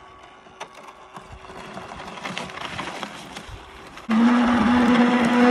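Thin ice crackling and clicking as an RC model trawler's hull pushes through broken ice, growing louder over the first few seconds. About four seconds in, a much louder steady droning tone with a fixed pitch cuts in suddenly and holds.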